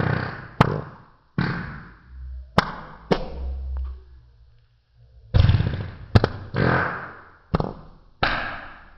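Hand farts: air forced out between cupped hands pressed together, making a series of about nine short, airy blasts, most starting with a sharp pop.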